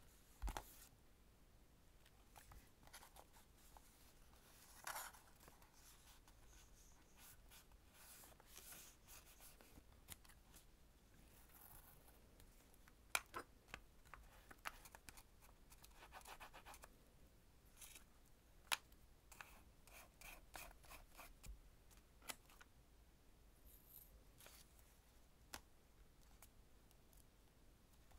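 Scissors snipping thin washi tape, with a few sharp snips among faint rustling and scratching as the tape is peeled from its roll and pressed down onto a paper journal page.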